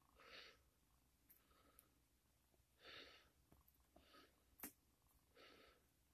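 Faint breathing close to the microphone: four short, soft breaths spread through the quiet, with a sharp click about four and a half seconds in.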